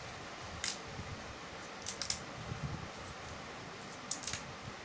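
Fresh Malabar nut (vasaka) leaves being broken up into small pieces: a handful of short, crisp snaps spaced irregularly, over a low steady background hum.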